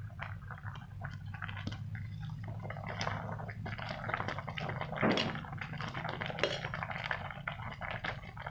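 A pot of vegetable broth boiling with a dense, crackly bubbling while a metal spoon stirs and presses leafy greens down into the liquid. Two louder clicks come about five and six and a half seconds in.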